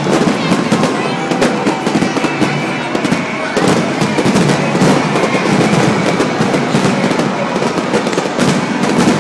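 Aerial fireworks going off in a dense, rapid barrage: many bangs and crackles overlapping with hardly a gap between them.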